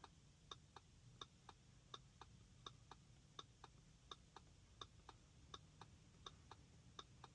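Near silence with faint, evenly spaced ticking in tick-tock pairs, about three ticks a second.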